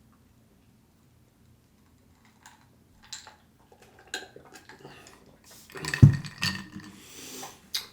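Someone eating close to the microphone: after about three seconds of near quiet come chewing and lip-smack clicks with a small clatter of dishes or cutlery. The loudest sound is a sharp knock about six seconds in.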